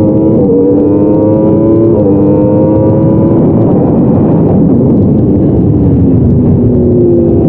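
Yamaha R1's inline-four engine at racing revs. Its note climbs for about three seconds, with small jumps in pitch near the start and about two seconds in, then falls steadily as the bike slows.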